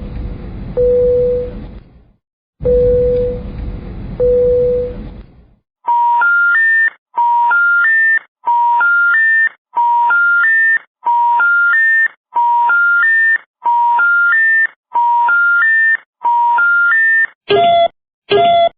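A series of electronic warning tones. First come two harsh, buzzing double blasts on one steady pitch. Then a clean three-note rising beep pattern repeats about nine times, a little over once a second. Near the end, quick short beeps start up at about two a second.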